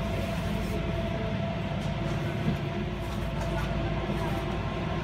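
Docklands Light Railway train pulling out of a station, heard from inside: a steady rumble of wheels on the rails with a steady running hum, and a single knock about two and a half seconds in.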